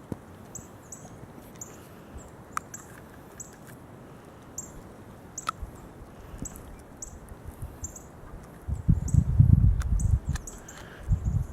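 Puppy gnawing a rawhide chew, with a few sharp clicks of teeth on the hide, while a bird chirps over and over in the background. About nine seconds in, a loud low rumble lasts a second or two.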